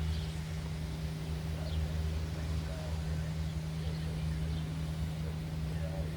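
Steady low mechanical hum at an even pitch, with a few faint short high chirps over it.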